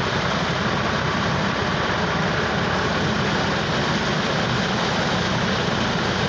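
Tractor engine running steadily to drive a thresher that is threshing maize. A low engine drone lies under the dense, even noise of the threshing machine.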